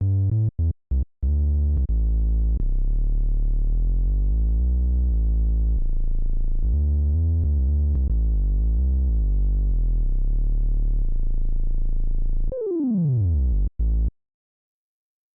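Prophet-5 synthesizer patch playing dark, low-pitched notes. It opens with a few short stabs, moves into a run of sustained bass notes that change pitch, and near the end a fast downward pitch sweep is followed by a couple of short stabs before it stops.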